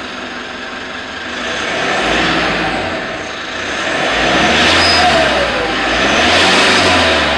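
Car engine running and revved about three times through its stock muffler, with no turbo whistle fitted; the exhaust rises and falls in pitch on each rev.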